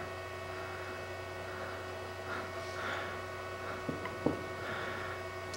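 A steady electrical mains hum, with faint handling rustles and two light metal clicks about four seconds in as a turned steel plug is fitted into the bore of a part held in a lathe chuck.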